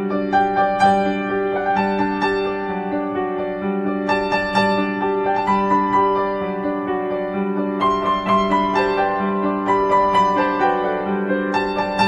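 Background piano music: a melody of struck notes over repeating held chords.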